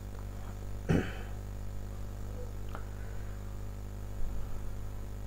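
Steady low electrical mains hum in the recording, with a short sharp sound about a second in.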